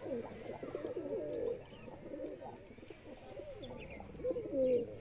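Domestic pigeons cooing, several overlapping low, gliding coos, heaviest at the start and again near the end.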